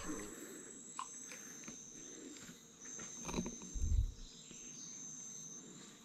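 Insects trilling steadily at a high pitch, a second high trill switching on and off in long stretches over it, with a low thump about four seconds in.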